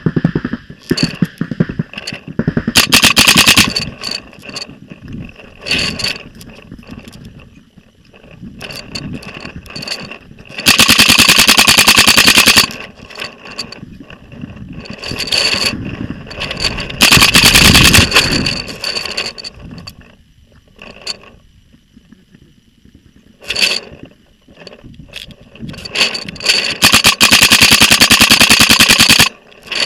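Paintball marker firing rapid strings of shots close up: four long bursts of one to two and a half seconds each, with scattered single shots and knocks between.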